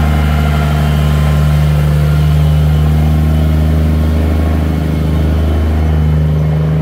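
Diesel engine of a Peterbilt semi tractor running steadily at low revs as the truck rolls slowly past.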